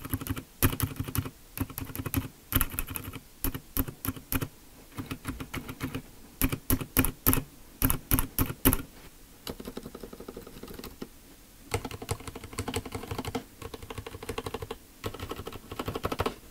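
Spacebar of a Filco Majestouch Convertible 2 keyboard, with Cherry MX Silent Red switches and a Costar-style stabilizer, pressed over and over: separate strokes for about the first nine seconds, then quicker, lighter taps. Pressing the right side brings a slight metallic rattle from the stabilizer wire, while the left side stays clean.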